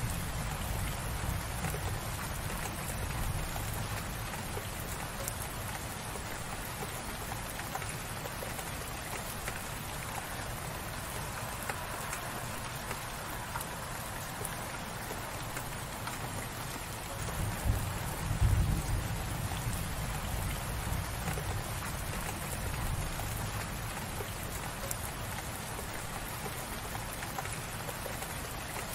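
Light, gentle rain falling steadily. A deep rumble swells and fades near the start and again about two-thirds of the way through.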